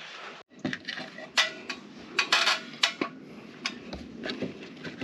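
Reclaimed clay roof tiles clinking and knocking against each other as they are handled and set in place: a run of sharp, irregular clinks, the loudest in the middle.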